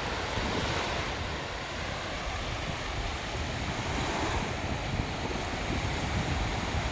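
Sea waves breaking and washing up onto a beach: a continuous surf hiss that swells gently about a second in and again past the middle.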